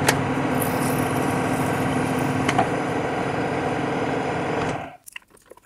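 Milling machine running with a tapping head in the spindle, driving a tap into a hole in a tool-holder block: a steady machine hum. It stops abruptly about five seconds in, with only faint clicks after.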